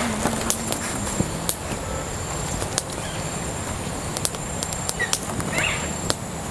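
Rustling and crinkling of a bundle of taro leaves and the thin fibre string tied around it as the string is pulled tight and knotted, with many short sharp clicks over a steady hiss.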